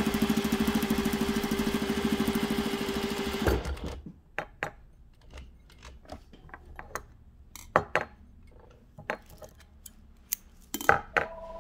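Juki DDL-8700H industrial single-needle lockstitch machine sewing at a steady speed through four layers of fleece, stopping suddenly about three and a half seconds in. Scattered clicks and taps of fabric handling and scissors snipping the thread follow.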